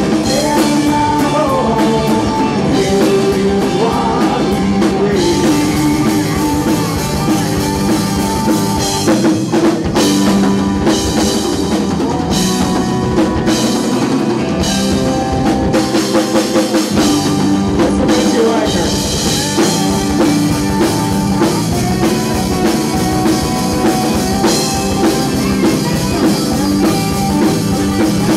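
Live band playing a rock song on drum kit, electric and acoustic guitars and lap steel guitar, with gliding slide notes in the first few seconds.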